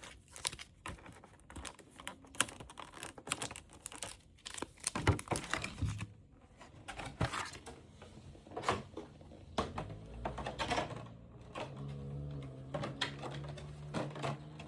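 Trading-card packaging being handled: irregular taps, clicks and crinkles of cardboard and plastic.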